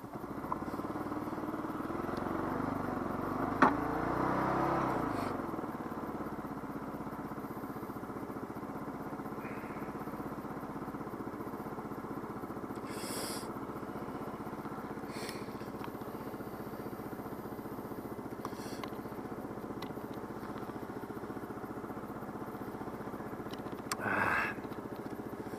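Daelim Witty 100 scooter's 100 cc engine running while being ridden. The engine note rises and falls over the first few seconds, then runs steady.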